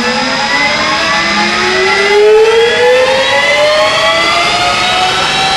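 ACER E-Lathe's 10-horsepower AC spindle motor on its variable-frequency drive speeding up, a whine of several tones rising smoothly in pitch for about four seconds and then holding steady at the set speed.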